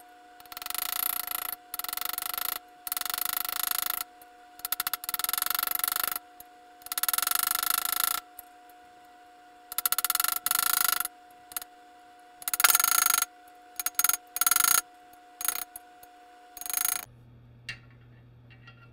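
Ball-peen hammer tapping a socket to drive a needle bearing into a through-bore in a cast transaxle case, a Wheel Horse 8-speed. The small taps come in quick runs of about a second each, with short pauses between.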